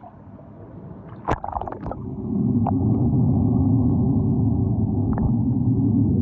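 A few sharp knocks and a short splash about a second in, then from about two seconds a steady, loud churning and gurgling of water in a small toy pool.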